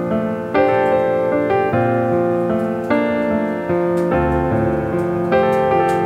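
Background piano music, a new chord struck about every second.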